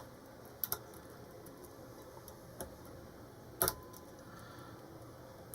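Lock pick clicking against the pins inside a Jaco 38 mm padlock as the pins are probed: two light ticks close together about half a second in and a sharper click about three and a half seconds in.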